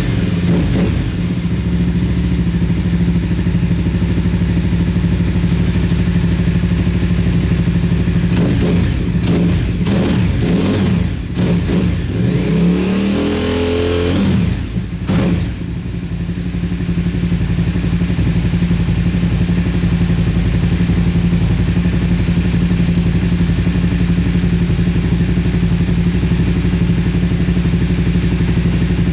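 Motorcycle engine idling steadily, freshly started on a recharged battery; it is revved several times about halfway through, the pitch rising and falling, then settles back to a steady idle.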